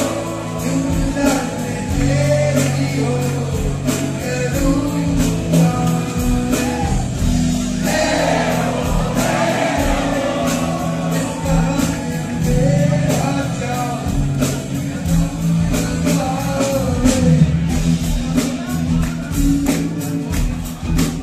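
Live band music: a man sings lead over electric guitar and keyboards, with a steady beat.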